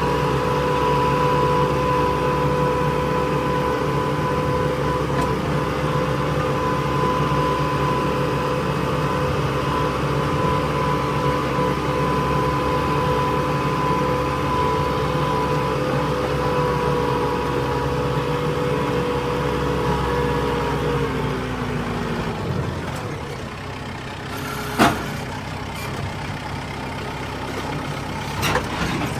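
Tractor engine running at a steady speed, then slowing and dying away about three-quarters of the way through. Two sharp knocks follow near the end.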